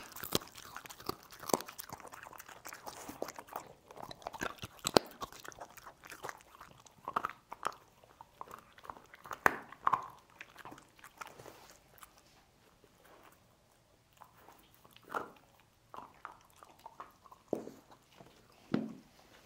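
A dog crunching and chewing pork bones, with sharp cracks as the bone breaks. The chewing is dense for about twelve seconds, then goes quiet briefly and thins to a few separate bites near the end.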